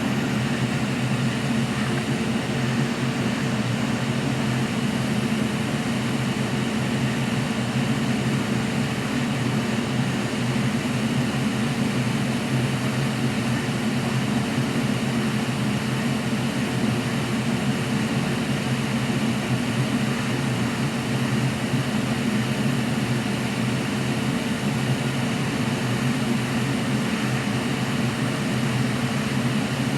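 Electric blower fan of bench repair equipment running steadily: a low hum under an even rush of air, while the old HDMI port is worked off a PS5 board.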